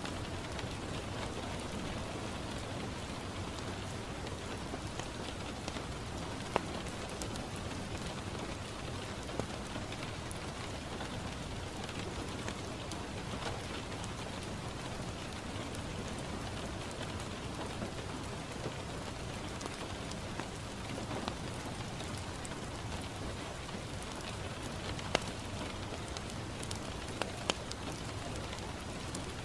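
Steady rain falling on a window, with a handful of sharp pops standing out through the steady noise.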